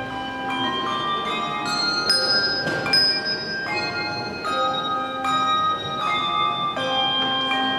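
Handbell choir ringing a tune in chords. Several bells are struck together for each new chord, about every half second to a second, and each chord rings on until the next.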